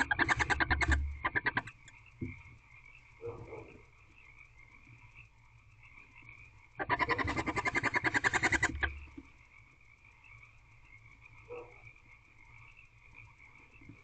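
Barn owls in a nest box giving rapid chittering calls, a fast rattle of pulses. One burst ends about a second and a half in, and a second burst of about two seconds starts roughly seven seconds in, with a couple of brief softer calls between. These are calls made around mating.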